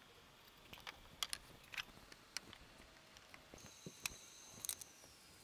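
Scattered light clicks and taps as spring clamps and small plywood pieces are handled and set down on a table saw's metal top during glue-up.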